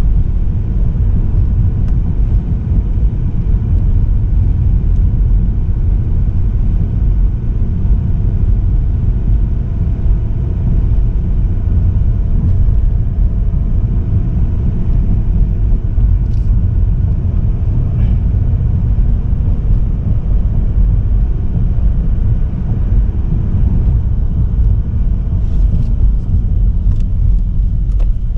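Car driving: a steady low rumble of road and engine noise, with a few faint clicks near the end.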